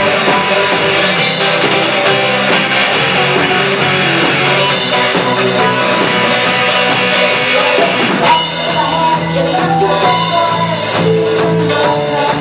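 A live rock band playing: drum kit, electric guitars, bass and keyboard, with a woman singing. About eight seconds in, the dense sound thins out and single held notes come through more clearly.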